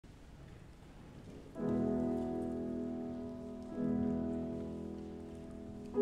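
Piano playing two sustained chords, the first about a second and a half in and the second near four seconds, each struck and then slowly fading. A faint hiss comes before the first chord.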